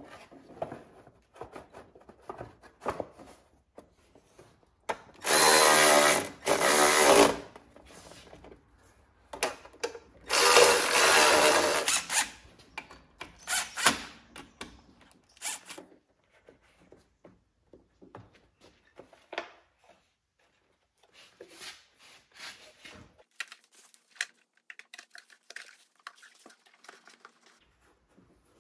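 Cordless drill running in two bursts of about two seconds each, roughly four seconds apart, with a brief third burst a couple of seconds later. Clinks and handling noises of hand tools in between.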